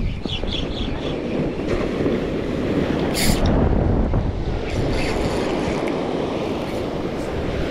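Surf washing onto a beach, with wind buffeting the microphone. A short hiss comes about three seconds in.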